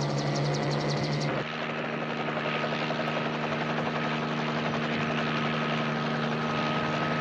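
Light helicopter in flight, a steady drone of rotor and engine. About a second and a half in, the fast rotor beat drops away and the sound turns to a smoother, slightly quieter drone, as heard from inside the cabin.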